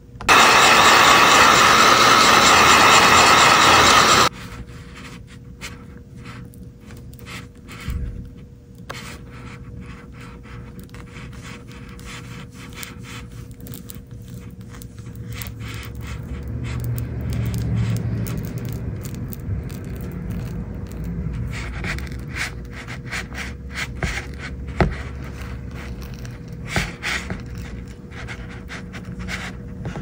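A loud steady hiss lasts about four seconds at the start. Then comes quiet, irregular scraping with small clicks, as a small tool picks at debris stuck in an iPad's headphone jack.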